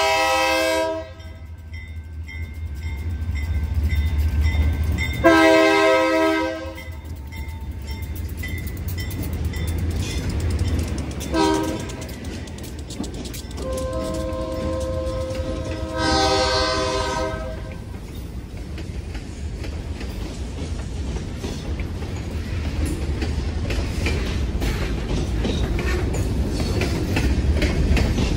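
Diesel locomotive's multi-chime air horn sounding the grade-crossing signal, long, long, short, long, with the last blast held about four seconds. Under it a diesel engine rumbles and the train's wheels clack over the rails, growing louder toward the end.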